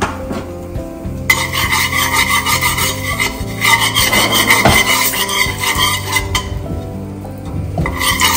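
A metal spoon and spatula scraping and stirring curry powder as it fries in hot oil in a metal pan: 'burning the curry', the first step of a Jamaican curry. The rasping scrape starts about a second in, eases off for a moment near the end, then picks up again.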